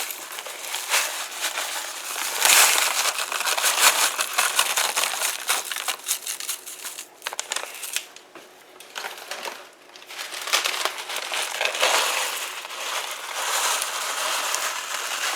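Boxed stovetop stuffing mix being poured and spread over raw chicken breasts in a slow cooker: a crunchy rustling and crinkling of the crumbs that eases off for a few seconds past the middle, then picks up again.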